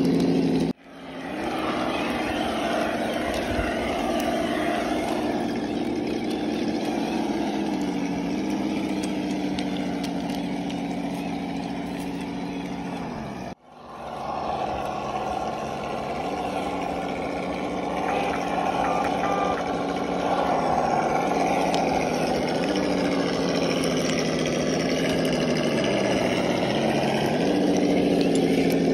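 Electronic V8 engine sound from a 1/10-scale RC crawler's sound unit, running steadily near idle with small dips and returns in pitch. It cuts out twice, about a second in and again about halfway through, each time fading back in.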